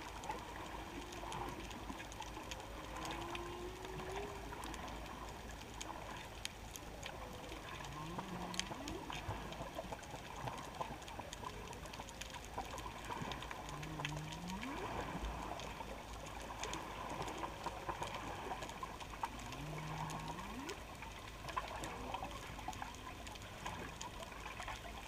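Humpback whale song heard underwater: a repeating phrase of a low held moan that sweeps sharply upward, about every six seconds, with a few higher wavering glides in the first seconds, over a steady crackle of faint clicks.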